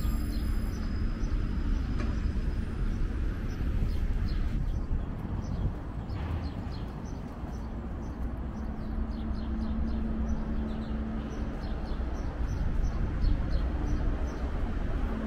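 Steady city traffic rumble with a low hum, and small birds chirping in short high notes, more often in the second half.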